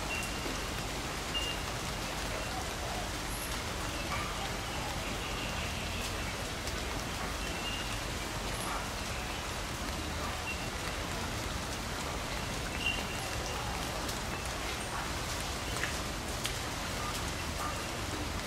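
Steady rain falling, with a few faint short ticks on top.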